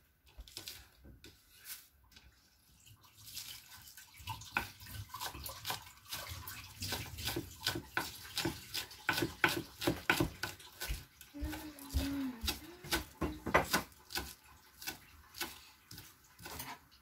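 Kitchen knife chopping green onions on a wooden cutting board: a run of sharp taps, about two to three a second, that picks up a few seconds in. A steady water sound sits underneath.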